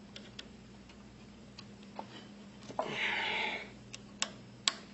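Light metal clicks and taps of a flathead screwdriver and piston ring as the last ring is squeezed into the cylinder bore, with a short rushing noise about three seconds in and two sharper clicks near the end.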